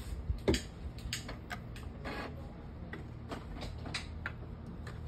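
Epson L810 inkjet printer ticking and clicking irregularly over a low hum as its mechanism runs the automatic head-cleaning cycle it performs on power-up.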